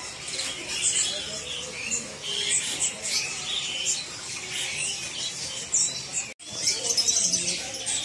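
Many caged canaries chirping and singing at once, a dense stream of short high chirps and trills. The sound cuts out for a moment about six seconds in, then the chirping resumes.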